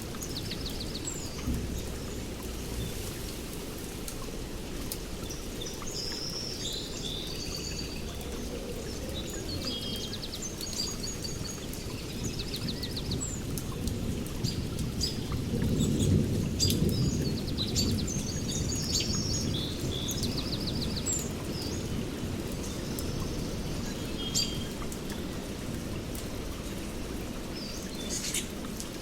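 Steady rain falling, with a low roll of thunder that swells about halfway through and fades. Birds chirp and trill high above the rain throughout.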